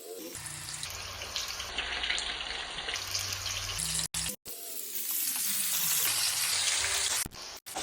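Broad bean pakodas deep-frying in hot oil: a steady sizzle, cut off abruptly for a moment about four seconds in and again near the end.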